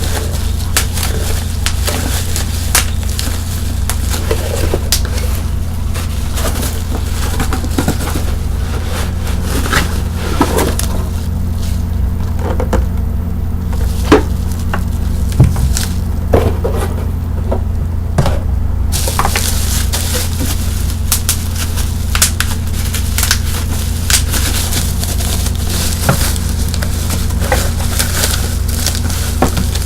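Bubble wrap crackling and crinkling as it is handled, with many sharp little clicks and two louder pops near the middle. A steady low hum runs underneath.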